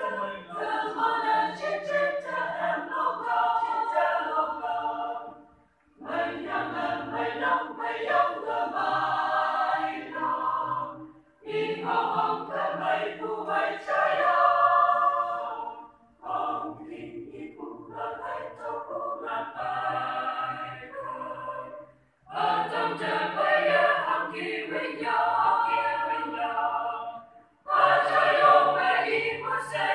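A choir singing in phrases of about five seconds each, with a brief pause for breath between phrases.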